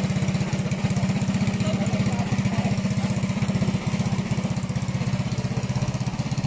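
Small engine idling steadily with a rapid, even putter, as on a pump boat (motorized outrigger canoe) held in the shallows.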